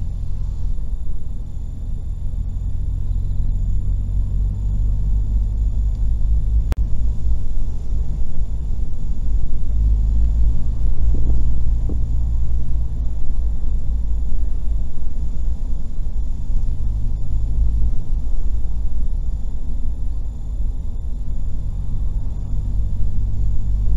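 Car driving: a steady low rumble of engine and road noise heard inside the cabin, swelling a little about halfway through.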